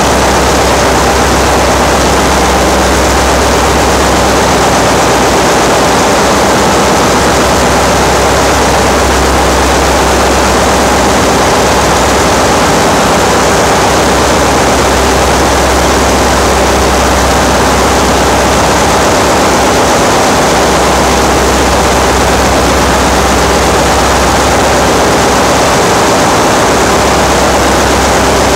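Loud, steady noise of a ship's engine-room machinery running, dense from deep rumble to hiss. A low drone swells and fades every few seconds.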